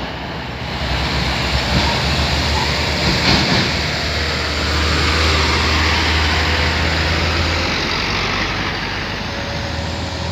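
Heavy diesel trucks passing close by: a steady low engine rumble with tyre and road noise, strongest through the middle.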